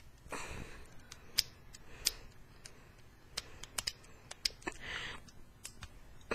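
Sharp small plastic clicks and taps, about eight spread over a few seconds, as the tiny hands of a Transformers Classics Ramjet action figure are pried out of its arms, with a short rustle near the start and again about five seconds in.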